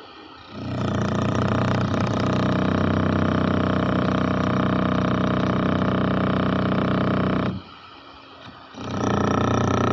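Concrete cutting saw running at a steady pitch, starting about half a second in. It stops abruptly near the end and starts up again about a second later.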